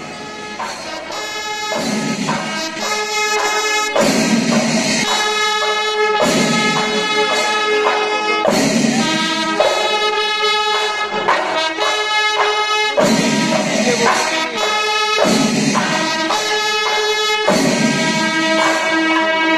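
Instrumental music with long held notes that change every second or two.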